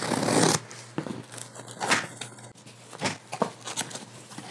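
Packing tape ripped off a cardboard box at the start, the loudest sound, followed by cardboard flaps and packing rustling and knocking as the box is opened.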